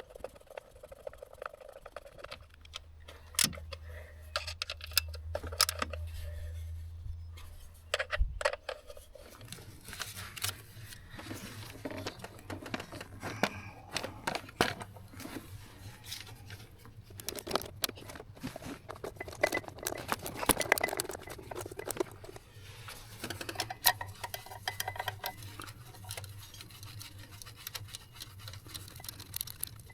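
Hand tools and bolts clicking, tapping and scraping on metal at irregular moments as engine covers are bolted back on, over a low steady hum.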